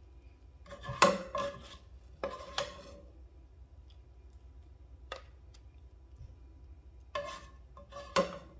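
A spatula scraping stir-fried food out of a nonstick frying pan and onto a ceramic plate. There are four short bursts of scraping and clatter, the loudest about a second in, and a single click near the middle.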